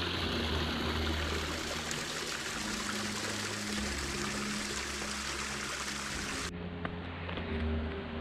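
Small mountain stream trickling and splashing over granite rocks in a steady rush of water. About six and a half seconds in, the sound drops abruptly to a quieter, duller background.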